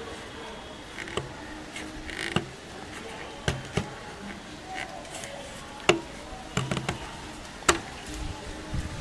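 Scattered clicks, taps and light knocks of a screwdriver and hands working the knob set screws off a vintage valve radio's control shafts, over a faint steady background.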